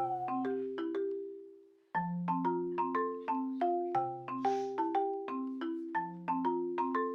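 Background music: a light tune of short struck mallet-percussion notes like a marimba, which fades away about a second in and starts again about two seconds in.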